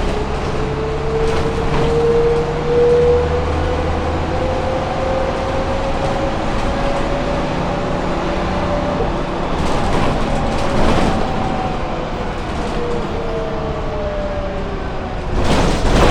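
Ride inside a city bus: a low engine rumble under a drivetrain whine that rises in pitch as the bus gathers speed, holds, then falls as it slows. Rattles about ten seconds in and a louder clatter near the end.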